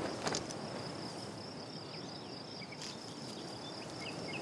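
Outdoor rural ambience: insects trilling steadily on one high pitch, with a few faint short bird chirps about three to four seconds in.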